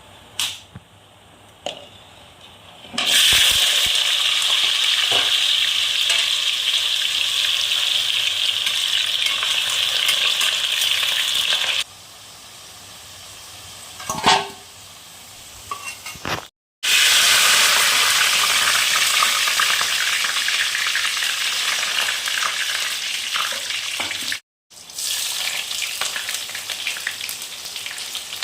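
Food sizzling loudly in hot oil in a pan, with stirring. The sizzle starts about three seconds in after a couple of clicks, and cuts out abruptly twice before resuming.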